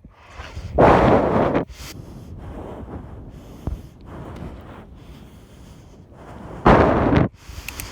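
Heavy breathing blown straight onto a phone microphone held in the mouth. There are two loud, rushing exhalations, about a second in and near the end, with a quieter steady rush between.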